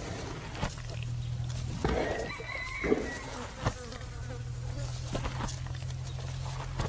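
Flies buzzing around a resting water buffalo: a low buzz that breaks off about two seconds in and comes back about four seconds in. Soft crunches come about once a second from the buffalo chewing its cud, and a rooster crows briefly in the middle.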